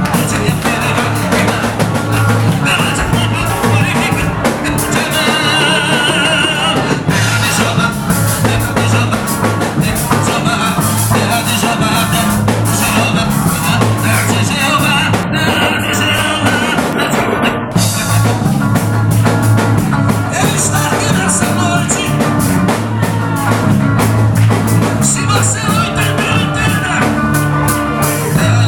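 Band music with a drum kit keeping a steady beat, with singing at times.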